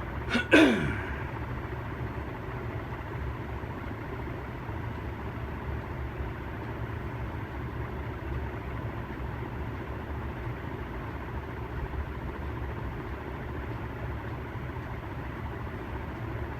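SMC 36-inch industrial ceiling fan running on high: a steady rush of moving air, strongest in the low range. About half a second in, a brief, loud sound sweeps sharply down in pitch.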